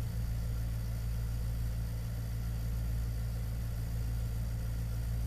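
Steady low hum with a faint even hiss, unchanging throughout and with no speech.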